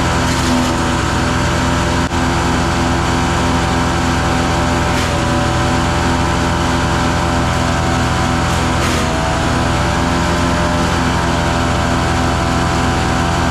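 An engine running steadily at high speed; its pitch sags briefly about nine seconds in and then recovers, as it would under a momentary load.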